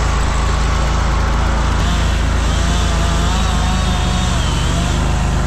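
Mini skid steer engine running steadily, with a wavering whine joining in from about two to five seconds in.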